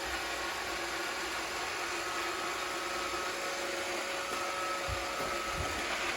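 iRobot Roomba 550 robot vacuum running, its motors giving a steady whine over a hum of airflow.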